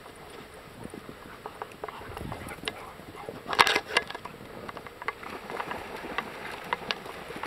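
Several dogs running about and splashing into shallow river water: scattered pattering and splashes, with a brief loud crackling noise about three and a half seconds in.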